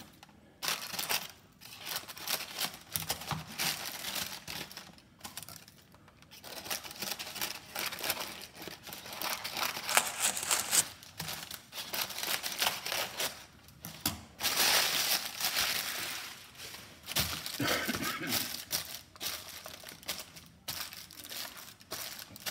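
Crumpled parchment paper crinkling and rustling in fits and starts as it is pressed into a banneton basket and trimmed with scissors.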